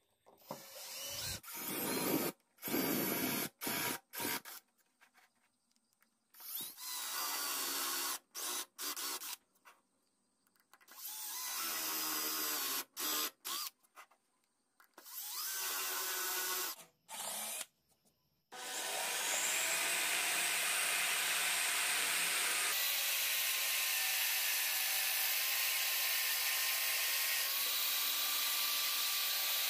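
Power drill boring holes into a pine disc, in a string of short runs broken by silent gaps, then running steadily through the last third.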